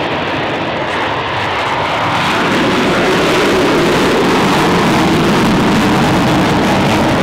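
Shockwave jet truck's three afterburning jet engines running at full thrust as the truck speeds down the runway: a loud, steady jet noise that swells a little about two seconds in.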